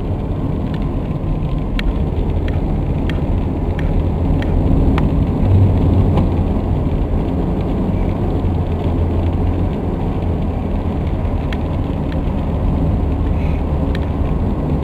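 Steady low rumble of a car driving along a highway, road and engine noise heard from inside the cabin, with a few faint ticks scattered through it.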